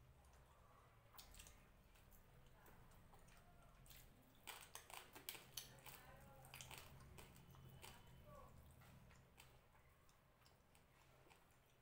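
Faint eating sounds of fingers picking flesh off a whole fried fish and working rice on a plate, with a run of small clicks about four and a half to six seconds in.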